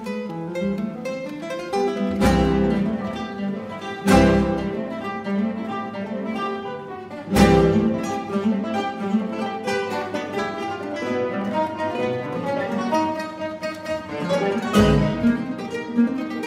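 Ensemble of classical guitars playing a contemporary piece: a busy texture of quick plucked notes, cut through by four loud accented strikes with a deep thud, about two, four, seven and fifteen seconds in.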